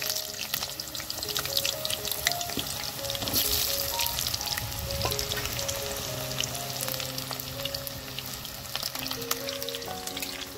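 Potato chunks sizzling and crackling in hot oil in an iron kadai, a dense, steady frying crackle. A melody of held notes plays underneath.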